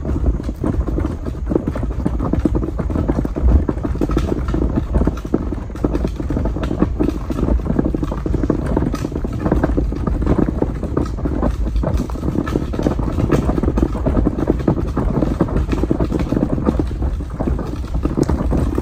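A wheeled garbage can being pulled along a dirt and gravel driveway, its wheels rattling and crunching in a steady, loud clatter, with footsteps.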